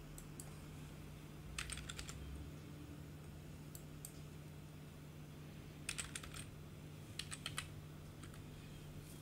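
Computer keyboard keys being typed in three short bursts of quick clicks, with a few single key clicks between, faint over a low steady hum.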